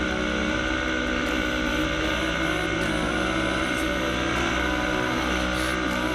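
Sport quad's engine running at a steady, even throttle while riding across sand, its pitch holding nearly constant.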